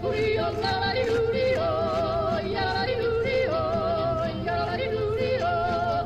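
Background music with a wavering, vibrato-laden melody, its notes changing every half second or so, over a steady low hum.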